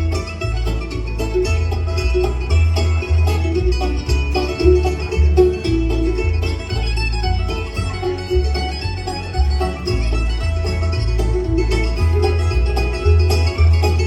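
Bluegrass band music: quick plucked string picking over a bass line that steps from note to note.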